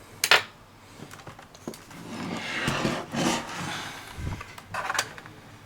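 A laptop's plastic top shut with a sharp clack, then the laptop slid and turned over on a desk, its case scraping and rubbing on the surface, with a few light knocks near the end.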